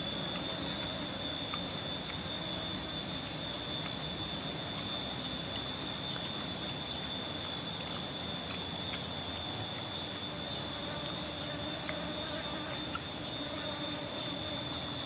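Insects in the forest: a steady high-pitched whine, joined a few seconds in by a short chirp repeated a little under twice a second.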